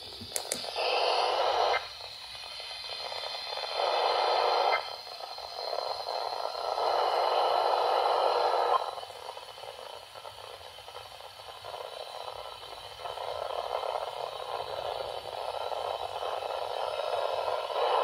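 Midland weather radio's speaker hissing with a harsh, static-filled signal, with three louder bursts of noise in the first nine seconds and a lower hiss after. These are the NOAA Weather Radio SAME header bursts coming through garbled instead of as clean data tones: the transmitter's headers are broken. A button click on the radio is heard right at the start.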